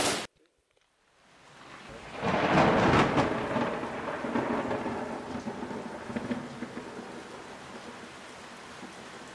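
A burst of gunfire cuts off abruptly, and after a second of near silence a rolling thunderclap swells, peaks and slowly fades into a steady hiss of rain.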